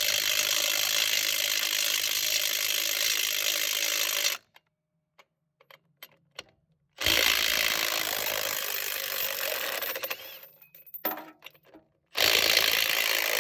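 Milwaukee M12 Fuel Stubby 3/8-inch cordless impact wrench hammering on lug nuts to break them loose, in three long runs: one stopping about four seconds in, one from about seven to ten seconds, and one starting near the end. Light clicks in the pauses between runs.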